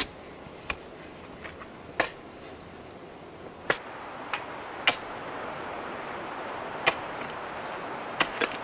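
Sharp single strikes of a digging tool chopping at a banana tree, about eight at uneven intervals. Under them is a steady hiss that grows a little louder from about halfway through.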